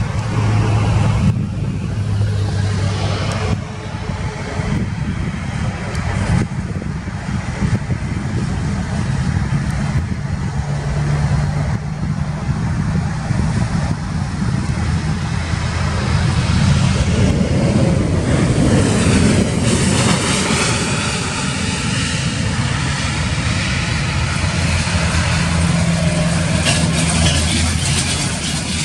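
Boeing 737 airliner's jet engines during a landing: a continuous roar that grows louder and sweeps in pitch for several seconds after touchdown, about halfway through. Underneath, the engines of another 737 taxiing close by keep up a steady low hum.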